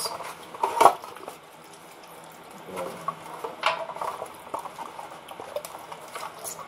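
Hands rubbing and pressing a raw whole chicken in a metal baking pan, with irregular knocks and clatter of the pan; the loudest knock comes about a second in.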